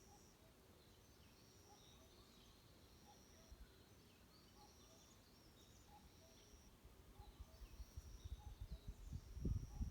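Forest birdsong: a bird repeating a short, thin, high whistled note about once every second or so, with fainter calls from other birds behind it. From about seven seconds in, low rumbling thumps come in and grow louder toward the end.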